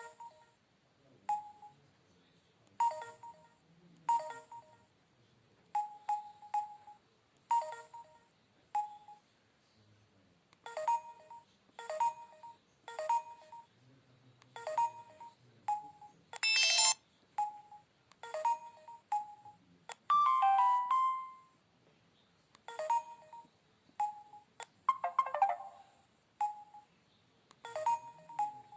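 Samsung SGH-U900 Soul mobile phone playing its preloaded electronic tones: short beeps and chimes about once a second with quiet gaps between, a longer, brighter chime just past the middle and a short gliding tone soon after.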